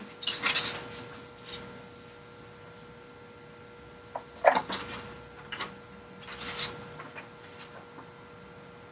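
Intermittent rustling and rubbing handling noises in a few short spells, with a faint steady hum underneath.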